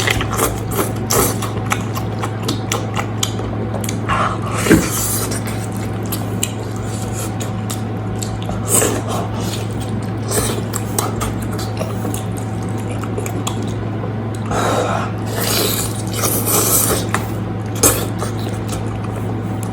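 Close-up eating sounds of meat being chewed: wet smacking and sucking with many short clicks and a few louder bursts, over a steady low hum.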